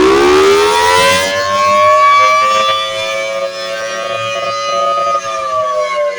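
Federal Signal Thunderbolt 1000T outdoor warning siren, loud, winding up from a low pitch to a steady high wail, holding it, then starting to wind down about five seconds in.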